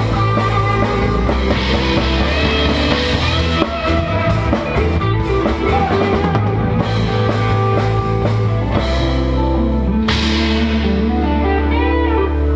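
Live rock band playing, a drum kit beaten with sticks driving it, with guitar over steady low bass notes.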